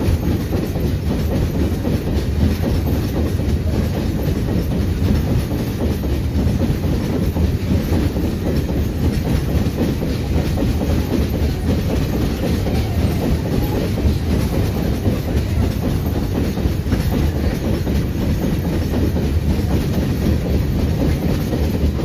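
A long freight train of open wagons rolling past at speed: a steady, loud rumble and clatter of steel wheels on the rails.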